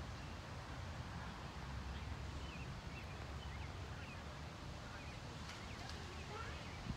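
Quiet outdoor ambience at a pond: a steady low rumble of wind on the microphone, with a few faint short bird chirps about two to four seconds in.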